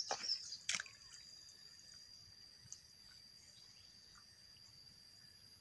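A few small splashes and squelches of water and mud in a flooded rice paddy during the first second, then only a faint background with a steady high-pitched whine.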